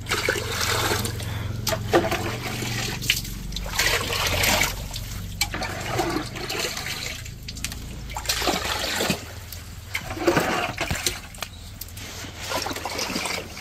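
Water being poured and splashed in uneven surges every second or two, over a low rumble that fades out about halfway through.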